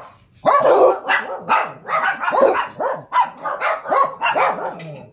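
Small dogs barking and yapping in quick succession, about three barks a second, excited while they are being hand-fed raw ground beef.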